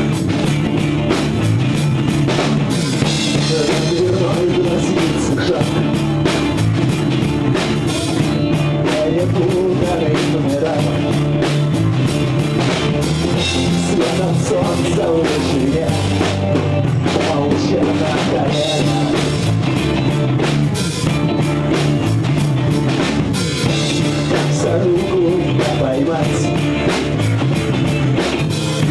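Russian rock band music: an acoustic guitar played over a drum kit, with a male voice singing.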